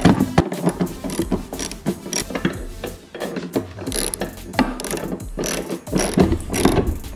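Ratchet wrench clicking in runs of short clicks as a bolt on a steel suspension mount is turned.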